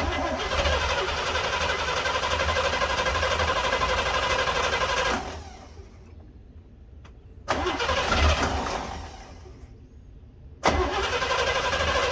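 Starter cranking the 350 small-block Chevy V8 of a 1968 Corvette on a cold start without the choke, in three tries. The first crank runs about five seconds and stops. A second starts about two and a half seconds later and fades away. A third begins near the end.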